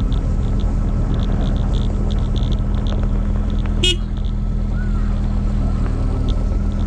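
Mini excavator's diesel engine running steadily, with a brief high squeal about four seconds in.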